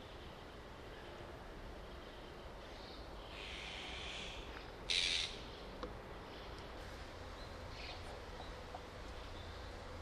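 Azure-winged magpies giving harsh, noisy calls: a longer call about three seconds in, then a short, louder one about five seconds in, with fainter calls near the end. The birds are in an uproar over a chick that has fallen into the shrubbery.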